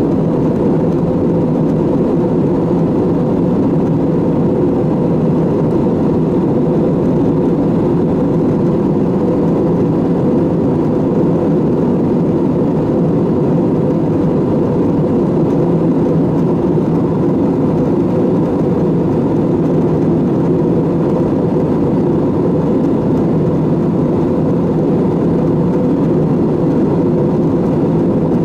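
Airbus A320neo airliner's jet engines running steadily at low power: an even, unchanging rumble with a faint held whine.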